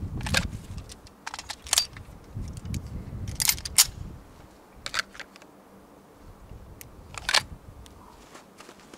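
A series of sharp mechanical clicks and knocks, irregularly spaced, about eight in all, the loudest two close together about three and a half seconds in, with a low handling rumble under the first few.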